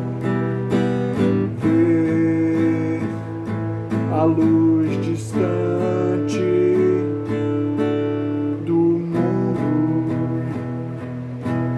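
Acoustic guitar music, plucked and strummed, with notes ringing over a steady low bass.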